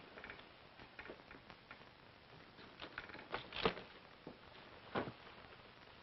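Light wooden knocks and scrapes as the broken lid boards of a wooden crate are handled, with two louder knocks in the second half.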